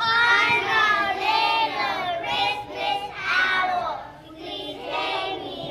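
A group of young children singing together, with hand motions.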